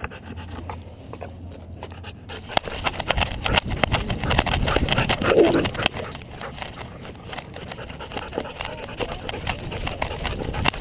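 Camera worn by a running dog: rapid, uneven thuds and rattles from the dog's strides jolting the harness mount, louder from about three to six seconds in, with a short vocal sound about five seconds in.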